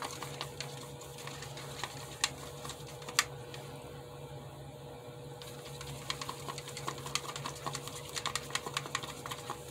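A wooden stir stick clicking and scraping against the sides of a plastic cup while stirring thick metallic gold acrylic pour paint that has just been thinned with water. The clicks are quick and irregular, come thicker in the last few seconds, and there is one sharper knock a few seconds in.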